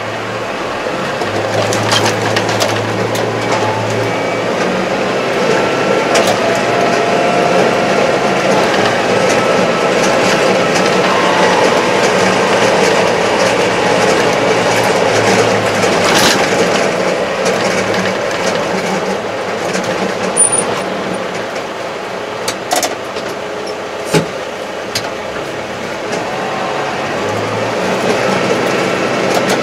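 Kubota MZ755 tractor engine and drivetrain running while driving, heard from inside the cab, the engine note rising and growing louder over the first few seconds as the tractor pulls away. A few sharp clicks about three-quarters of the way through.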